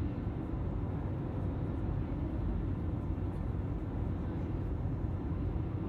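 Steady low rumble of motor vehicle noise, with no distinct events.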